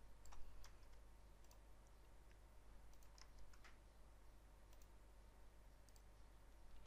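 Faint clicks of a computer mouse and keyboard: a few scattered sharp clicks in small clusters, the loudest about half a second in, over near-silent room tone.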